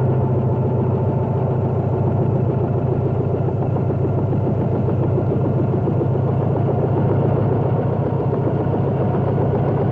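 A vehicle engine running steadily at an even speed, a constant low drone with a fast regular pulse.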